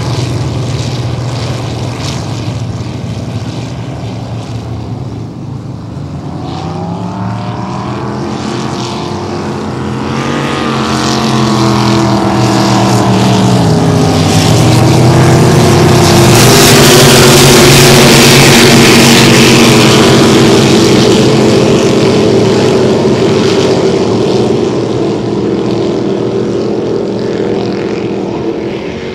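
Supercharged engines of v-drive drag boats running at full throttle as the boats race past. The pitch climbs over several seconds as they accelerate, dips once, and peaks at its loudest with a rushing hiss as the boats pass closest, then falls away near the end.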